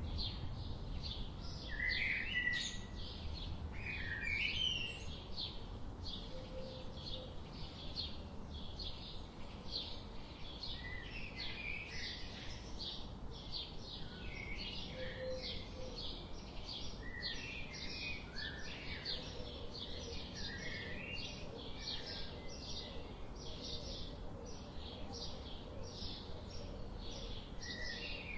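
Several wild birds singing: one repeats short high chirps about two a second without a break, while another breaks in now and then with brief warbling phrases. A low background rumble runs underneath.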